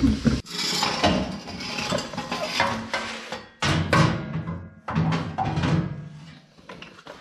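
A long, rusty steel exhaust pipe scraping and clanking against the concrete floor and the truck's underside as it is dragged out from beneath the truck.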